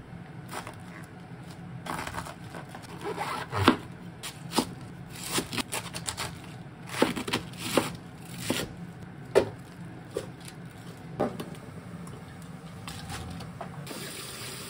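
Kitchen knife cutting through a head of cabbage on a wooden cutting board: crisp crunching slices and knocks of the blade on the board, irregularly spaced, dying away near the end.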